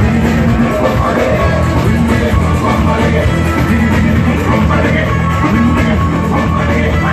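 Rock music with electric guitar and a steady band backing, laid over the end of the video.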